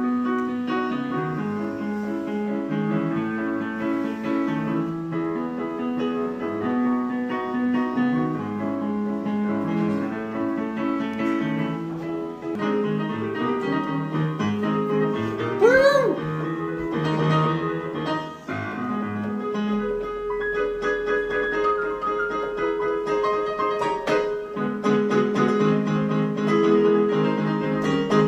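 Piano music, a run of held chords and melody notes. About halfway through, a short rising pitched sound rises above it.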